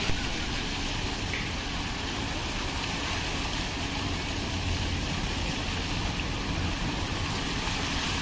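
Water jets of a fountain spraying and splashing into the pool: a steady rushing hiss with a low rumble beneath. There is a brief bump right at the start.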